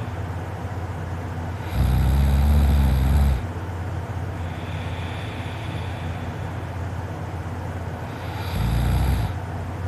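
A sleeping person snoring: a loud, low snore about two seconds in that lasts about a second and a half, then a shorter one near the end, with fainter breath sounds between, over a steady low hum.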